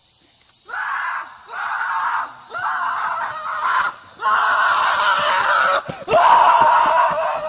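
A series of about five loud screams, each starting sharply after a short break, the later ones longer.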